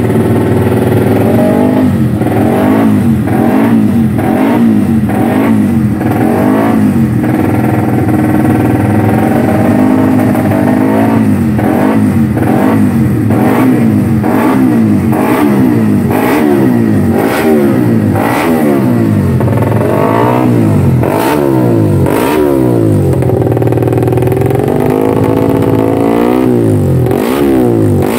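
Race-tuned Yamaha MX King single-cylinder four-stroke engine, revved on the stand through an open racing exhaust. It is blipped over and over, its pitch rising and falling about once a second, with a few longer, higher revs near the end.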